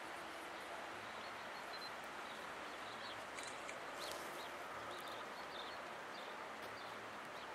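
Outdoor mountain-valley ambience: a steady hiss of background noise with a few faint, short chirps and ticks scattered through it.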